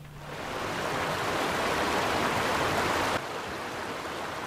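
A wide rushing noise swells up over the first second, holds, then drops off sharply about three seconds in, leaving a quieter hiss.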